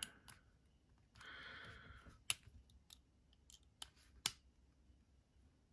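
A precision screwdriver turning the pivot screw of a Fox Suru folding knife with aluminium handles. A soft rasp comes about a second in, then several sharp small clicks spaced irregularly through the rest.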